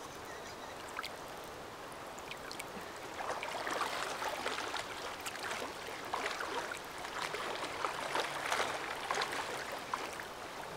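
Water splashing in irregular bursts as a person wades and swims in a river, over a steady background of flowing water; the splashing starts about three seconds in and dies down near the end.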